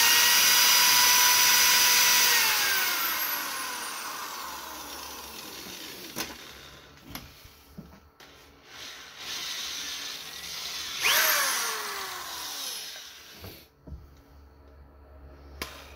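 Electric motor spinning the oil pump drive shaft of a small-block Mopar 318 while it is held against an abrasive sponge to polish out light scoring. The whine holds steady for about two seconds, then winds down over several seconds; a second shorter spin-up and wind-down comes about eleven seconds in, with a few knocks between.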